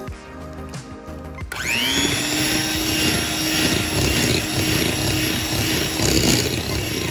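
Electric mixer switched on about one and a half seconds in, its motor whining up to speed and then running steadily as the beaters whip an egg into creamed butter and sugar.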